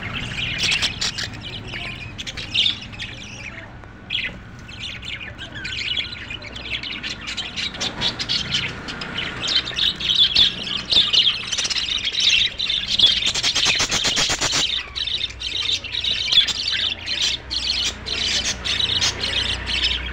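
A flock of budgerigars chirping and squawking together in continuous chatter, growing busier and louder about halfway through.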